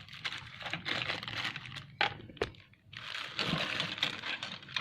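Plastic packaging rustling and crinkling as small action-camera accessories are handled, with two sharp plastic clicks about two seconds in.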